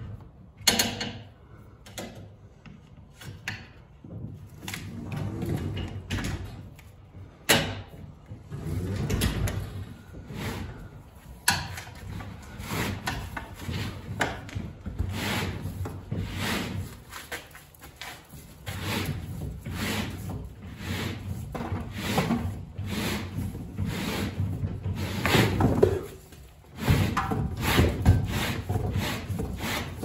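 Old rubber bottom seal of a garage door being pried free where its retainer groove is pinched, then slid and pulled out along the groove: irregular rubbing and scraping of rubber in the track, with a few sharp clicks from the tool and the track, the loudest about a second in and again around seven and eleven seconds.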